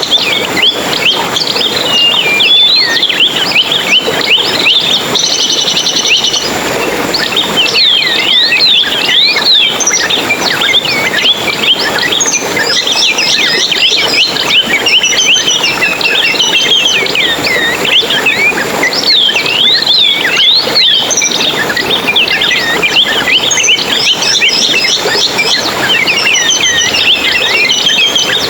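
A dense chorus of small songbirds chirping and twittering, many quick high calls and trills overlapping without a break.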